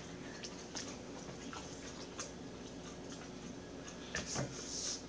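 Close-up mouth sounds of a person chewing a sandwich: scattered soft wet clicks and smacks, with a short breathy hiss about four seconds in.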